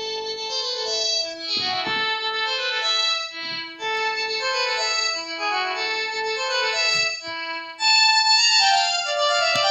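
Panasonic cordless phone playing a polyphonic ringtone melody of electronic notes. It starts right after a brief silence, and about eight seconds in it dips briefly and comes back louder.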